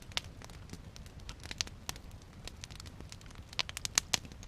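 Wood campfire crackling, with irregular sharp pops; a quick run of the loudest pops comes near the end.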